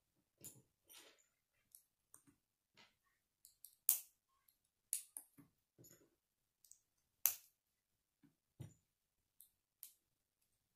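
K'nex plastic rods snapping into connectors by hand: scattered sharp clicks, the loudest about four and seven seconds in, with softer handling sounds of the plastic pieces between.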